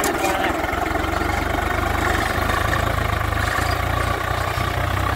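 A diesel farm tractor engine running steadily under load as it pulls a plough through the soil.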